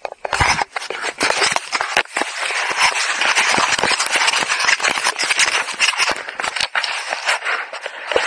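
Skis scraping over snow: a loud, continuous rough rasp full of short crackles, starting suddenly with a few low thumps in the first second.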